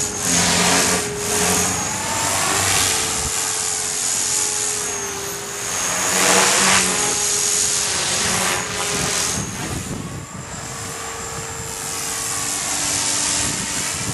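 Hobby-Lobby Dragonus II N-Plus RC helicopter in flight: its engine's steady high whine shifts in pitch as the rotor loads and unloads through manoeuvres, with loudness swelling and fading as it moves.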